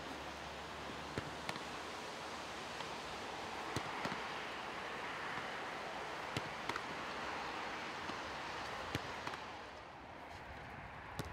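Footballs being struck and caught in goalkeeper drills: sharp thuds of a boot on the ball and gloves on the ball, mostly in pairs about a third of a second apart, repeating every few seconds. Under them is a steady outdoor rushing noise.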